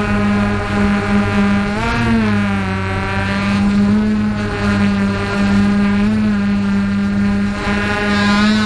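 Engine running steadily, its pitch rising and falling briefly about two seconds in.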